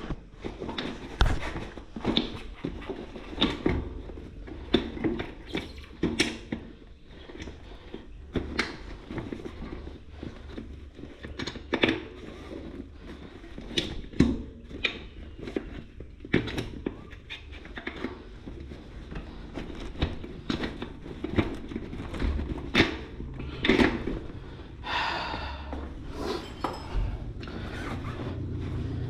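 Irregular knocks, thunks and clicks, roughly one or two a second, as of objects being handled and set down.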